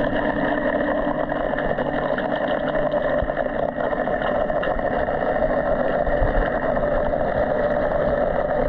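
Dolphin Nautilus CC Plus robotic pool cleaner's pump motor running steadily, heard as a muffled hum from under the water.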